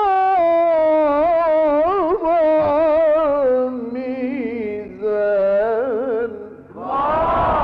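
Male Quran reciter chanting in the melismatic mujawwad style, holding one long ornamented phrase whose pitch wavers and sinks gradually. About seven seconds in, a live audience breaks into many overlapping cries of approval.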